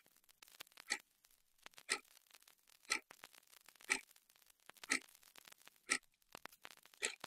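Quartz wall clock ticking, one sharp tick each second, with faint crackles between the ticks.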